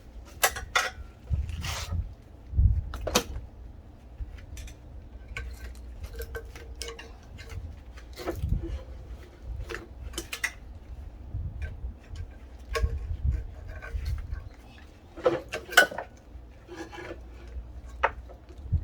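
Irregular clinks and knocks of hard objects being handled, with dull low thuds between them.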